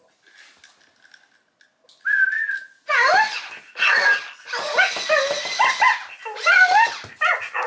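Present Pets interactive toy puppy making electronic puppy sounds. A thin steady whine comes about two seconds in, then a run of yips and whimpers rising and falling in pitch.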